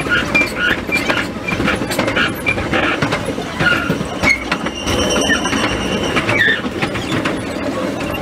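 Choshi Electric Railway train (set 3001/3501) running, heard from the driver's cab and played back at four times speed: fast rail clicks and wheel noise, with a steady high tone about five to seven seconds in.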